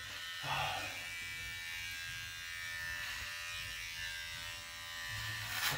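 Electric shaver buzzing steadily as it cuts through sideburn hair.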